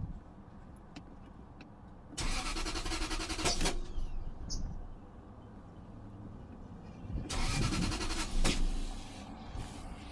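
1997 Lexus LS400's 4.0 L V8 being cranked by the starter twice, each attempt about a second and a half long, without the engine catching: a crank-but-no-start fault.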